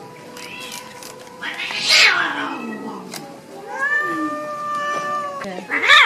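Several cats meowing over one another in long, drawn-out calls. There is a loud meow about two seconds in, and more overlapping calls build again near the end.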